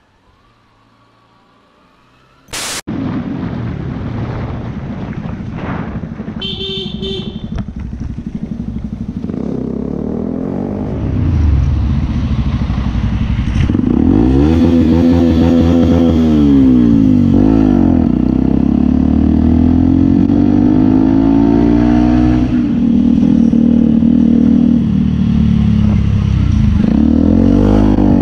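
After a quiet first two seconds, a motorcycle engine runs loud and steady under way, its pitch repeatedly rising and dropping as it revs up and shifts gears. About seven seconds in there is a short series of horn beeps.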